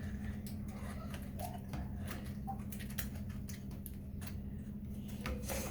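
Faint irregular clicks and light taps over a steady low hum.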